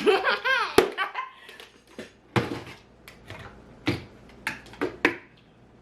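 A woman laughs briefly, then a sharp click and a string of irregular knocks and clatters as small items are handled and moved about on a dresser.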